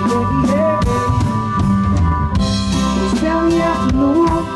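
Live band playing an instrumental passage between sung lines: drum kit hits and fills over bass, strummed acoustic guitar and held notes.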